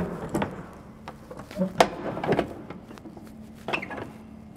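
Metal clanks and clicks of a semi-trailer's rear swing-door lock handles and lock rods being worked by hand: several separate sharp knocks with a brief ring, the loudest at the very end.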